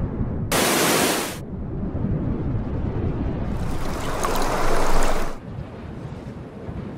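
A loud splash of water lasting about a second, over a low rumble. A second rushing sound builds from about three and a half seconds in and cuts off suddenly a second or two later.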